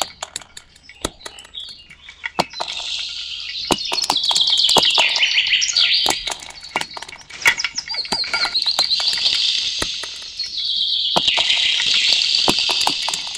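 Bird-like chirping in long bouts of rapid, high trills, part of a sonified soundscape driven by the dancers' movements, with sharp clicks scattered throughout. The first couple of seconds hold mostly clicks before the chirping sets in.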